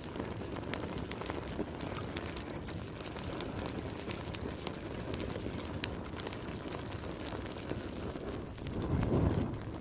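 Fire sound effect: a steady crackling rumble of flames, with a brief swell near the end.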